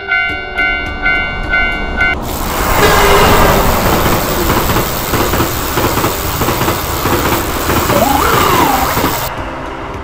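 Japanese railroad crossing alarm ringing in a steady pulse about twice a second, drowned out about two seconds in by the loud rush of a passing train for about seven seconds, with one short tone sliding up and back down near its end; the alarm pulse returns near the end.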